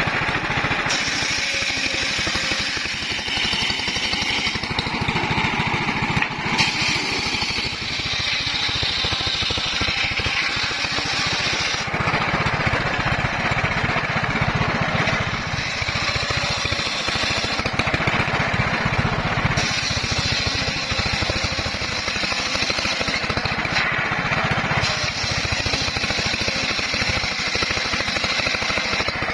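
Homemade bandsaw running steadily while sawing teak wood. The machine and cutting noise carries on without a break, its higher, hissing part rising and falling every few seconds.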